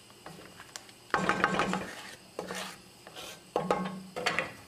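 Wooden spoon stirring pieces of goat meat in seasoned water in an enamelled cast-iron pot, scraping against the pot in four strokes, the longest and loudest about a second in.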